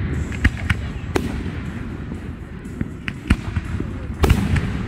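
Fireworks going off: a scattered string of sharp bangs, the loudest near the end, over a steady low rumble.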